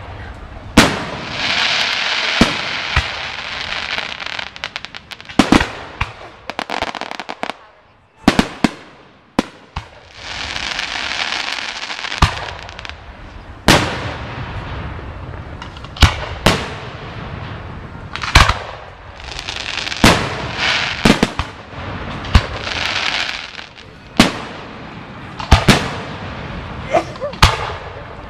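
Aerial firework shells bursting overhead one after another, with sharp bangs every second or two and spells of hissing crackle between them.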